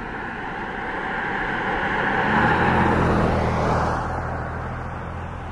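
A car passing by on the road: tyre and engine noise swells to a peak about three seconds in, then fades away.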